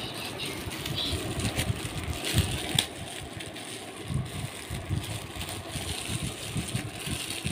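Metallic foil gift wrap crinkling and crackling as small hands handle it and tear it open, in irregular bursts with scattered sharp crackles.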